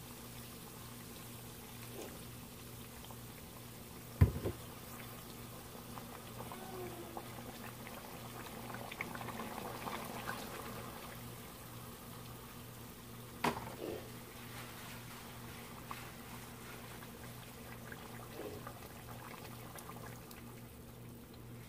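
Pork chunks bubbling in lard and juices in an enameled cast-iron Dutch oven, with liquid poured into the pot twice, around the middle and near the end. Two sharp knocks cut in, the louder about four seconds in.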